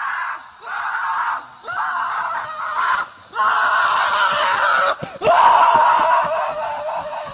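A voice screaming over and over: five loud, long screams with short breaks between them.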